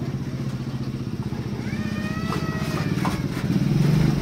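Small single-cylinder engine of a Lal Din motorized cargo loader rickshaw running steadily as it reverses slowly, getting louder as it comes closer near the end.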